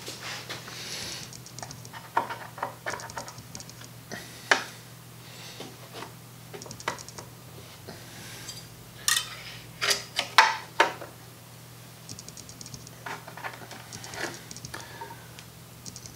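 Small, scattered metallic clicks and taps as old nails are worked by hand out of a wooden drawer side clamped in a vise, with a few louder, briefly ringing metal clinks about nine to eleven seconds in.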